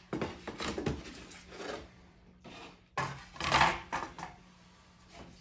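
Laser-cut wooden clip frames being handled and stacked on a wooden table: a series of wooden knocks and clatters, loudest about three and a half seconds in.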